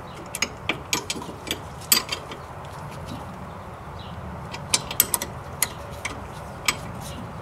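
A wrench working the 10 mm mounting bolts of a rear drum brake wheel cylinder, snugging them up: sharp metallic clicks and clinks in two bursts, the first about a second in and the second near the five-second mark.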